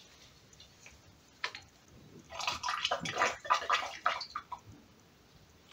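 Liquid sloshing and splashing in short irregular bursts for about two seconds near the middle, as a bottle of dichloromethane is handled over a glass funnel, with a single knock a little earlier.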